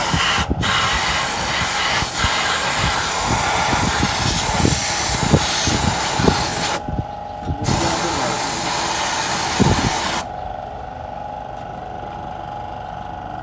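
Compressed air hissing from a hand-held air blow gun, blasting dust off a car's front hub and strut, with low knocks of handling beneath. The blast stops briefly about seven seconds in, resumes, and cuts off about ten seconds in, leaving a quieter steady hum.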